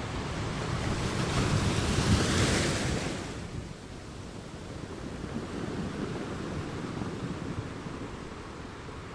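Sea waves breaking on a rocky shore: one wave builds and crashes with a hiss about two to three seconds in, then drops away suddenly to a lower wash of water that swells again briefly a few seconds later.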